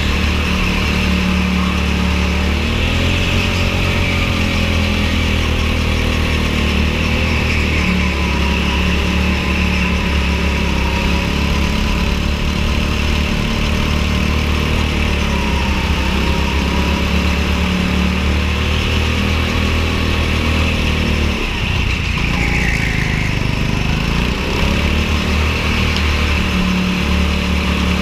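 Rental go-kart engine running under load, its pitch rising and falling with the throttle through the corners. About three quarters of the way through, the engine note drops sharply as the throttle is lifted, then climbs again.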